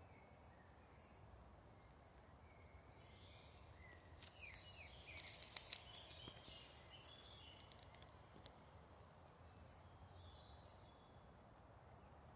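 Faint songbird calls over quiet outdoor background noise, with a short busy burst of high chirps and trills, including a few sharp clicks, about four to six seconds in.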